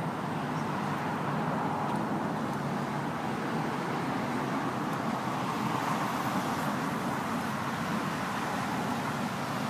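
Flood-swollen creek rushing steadily, a constant noise of fast-running water, the creek far above its normal depth after hurricane rains.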